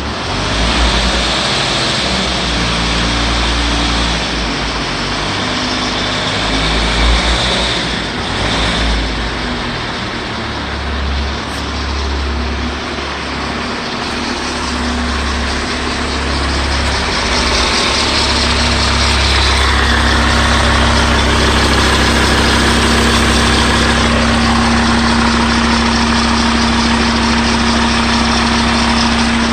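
Audi A6 C4 2.5 TDI five-cylinder diesel engine running with a whistling noise, uneven at first and settling to a steady note about two thirds of the way through.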